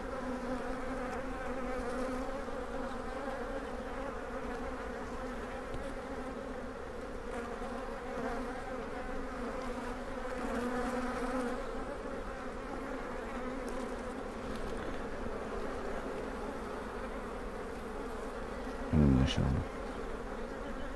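Honeybee colony buzzing in an open hive during a frame inspection: a steady, even hum of many bees. A brief louder low sound comes near the end.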